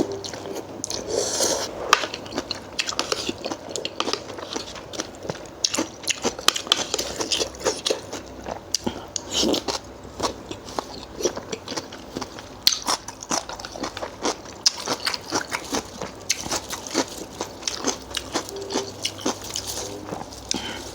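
Close-miked eating: a person chewing and crunching mouthfuls of food, with many irregular crisp crunches and wet mouth sounds.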